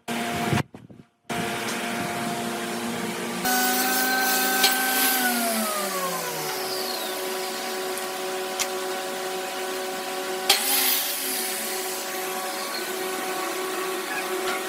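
Electric woodworking power tool motor running with a steady whine over a hiss. A few seconds in, one motor's pitch falls as it slows, while a steady whine carries on.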